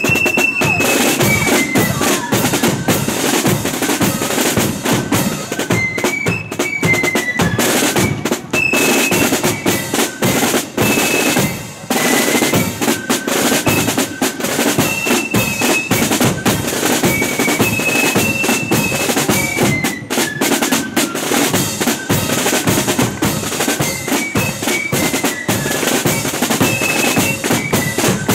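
Marching flute band playing a march: flutes carry a high melody over rattling snare drum rolls and a steady bass drum beat.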